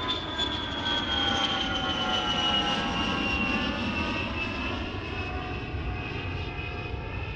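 A fixed-wing aircraft passing overhead: a steady engine rumble with a whine that slowly falls in pitch as it goes by.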